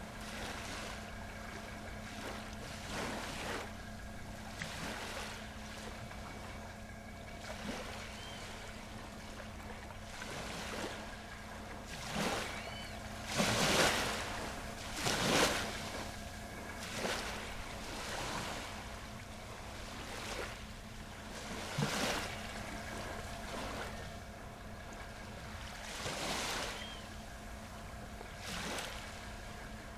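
Waves splashing and washing in repeated surges every second or two, the biggest about halfway through, over a steady low hum.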